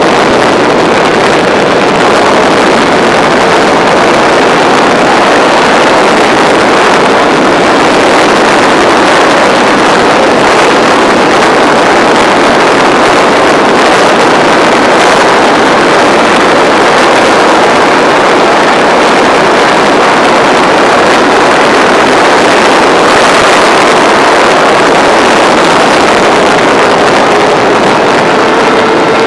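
Racing motorcycle engine running hard at speed, heard from an onboard camera, with heavy wind rush over the microphone; loud and steady throughout.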